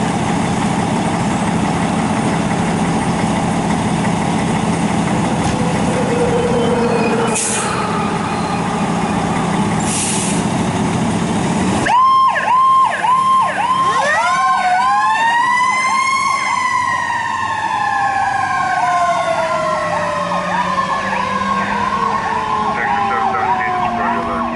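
Fire engine's diesel engine running, with two short hisses of air. About halfway in, an electronic siren starts a rapid yelp, and a second siren tone rises and then slowly falls in pitch underneath it as the truck responds.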